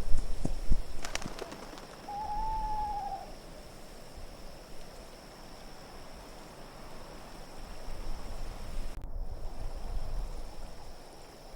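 Steady wind with a low rumble; about two seconds in, a single drawn-out owl hoot, arching slightly in pitch and dropping at the end.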